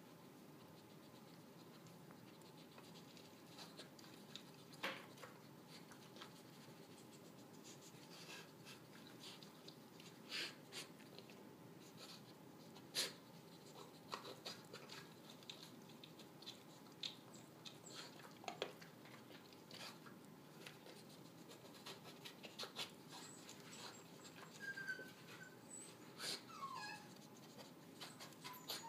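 Dog nosing at a wooden treat puzzle, pushing and lifting its pieces to get cookies out: scattered light wooden clicks and knocks at irregular intervals over a quiet background, with a few short squeaks near the end.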